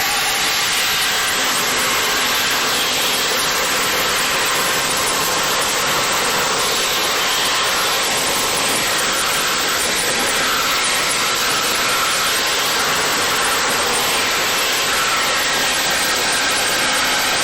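EXAIR compressed-air vacuum gun, which has no moving parts, running in vacuum mode. It makes a loud, steady rush of air as it sucks up debris through an extension wand into its filter bag.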